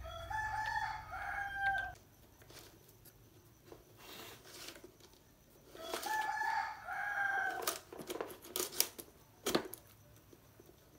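Rooster crowing sound effect, played twice about six seconds apart. A few sharp clicks of handling follow near the end.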